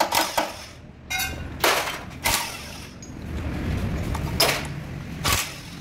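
Metal hand tools clanking and knocking against an opened truck gearbox at its output shaft: several separate sharp knocks spread out, with a short rattle about a second in.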